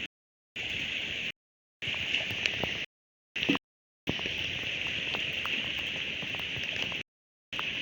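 Hail and rain pelting down in a dense steady patter, with scattered sharper hailstone hits and a couple of louder strikes. The sound cuts out completely several times.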